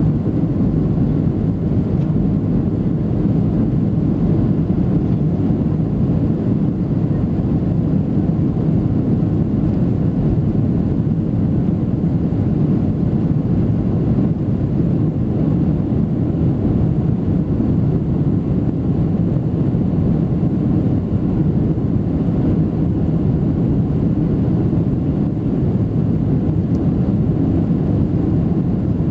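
Steady cabin noise of a Boeing 737-700 airliner, a low, even rumble of its CFM56 jet engines and airflow heard from inside the passenger cabin.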